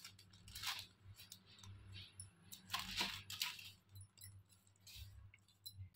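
Faint handling sounds as pieces of marinated beef are set down on butter paper: a few brief rustles and soft taps, two of them clearer than the rest, over a faint low hum.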